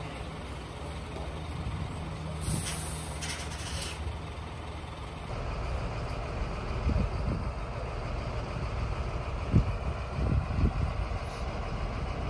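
Heavy vehicle's diesel engine running steadily, with a sharp hiss of released air from about two and a half to four seconds in, typical of air brakes. In the second half, low gusty thumps of wind on the microphone come over the engine.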